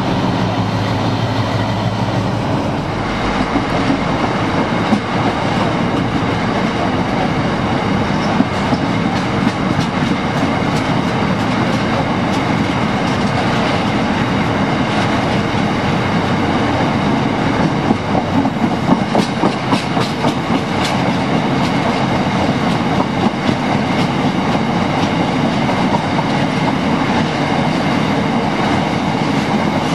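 Class 60 diesel-electric freight locomotive running past under power, its engine tone clear for the first few seconds, followed by a long rake of tank wagons rolling by. The wagon wheels click over rail joints in a steady clatter, with a burst of sharper clicks about two-thirds of the way through.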